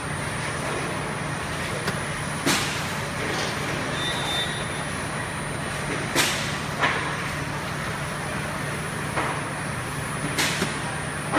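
Tunnel baking oven running with its conveyor, a steady mechanical hum and rush, with a few sharp knocks every few seconds.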